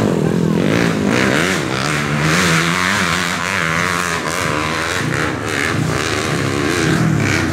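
Dirt bike engines running and revving, the pitch rising and falling again and again.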